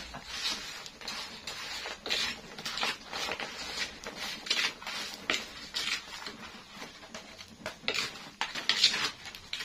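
Spatula scraping and stirring around a wok of frying krupuk crackers, a run of irregular scrapes about one or two a second, with a few louder strokes near the end.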